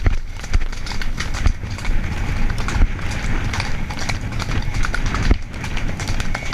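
Hoofbeats of a palomino mare ridden at speed along a dirt track, heard from the rider's helmet, with a second horse running just ahead.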